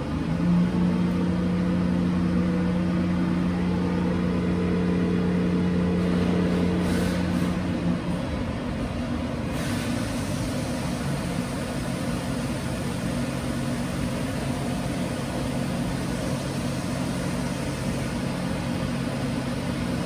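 Titanium spinning coin spinning on its dish, a steady low hum made of a few held tones. The strongest tone drops away about eight seconds in and the mix of tones shifts, with a soft hiss coming up.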